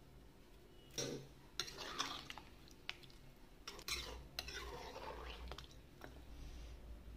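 Metal ladle stirring thick chicken curry in a pressure cooker pot, starting about a second in: sharp clinks and scrapes of metal on the pot among a wet stirring noise.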